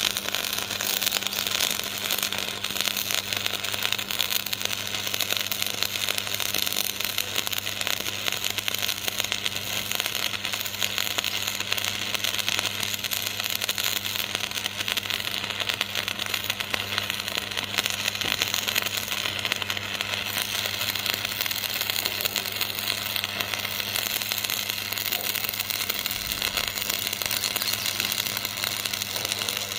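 Electric arc welding on iron: the arc crackles and sizzles steadily, over a low steady hum.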